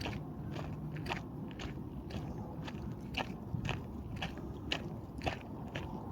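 Footsteps crunching and scraping on a trail at a steady walking pace, about two steps a second.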